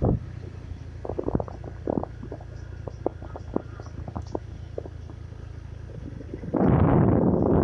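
A road vehicle's engine running with a steady low hum, with scattered short knocks and rattles from the ride over the road. Near the end, loud wind buffets the microphone.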